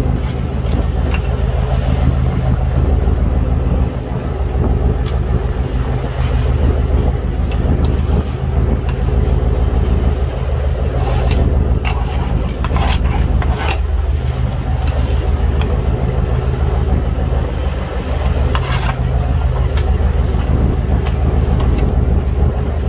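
Fishing boat's engine running with a steady low hum, overlaid by a few short scrapes and clatters as a plastic scoop sweeps the catch across the deck.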